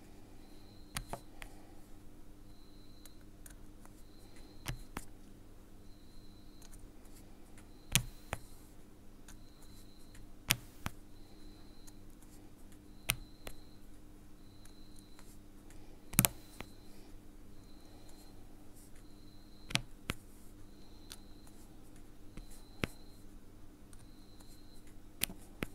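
Round resin drills being pressed one at a time onto a sticky Diamond Dotz diamond-painting canvas with a drill pen, each giving a sharp light click or pop, about one every three seconds. A faint steady hum runs underneath.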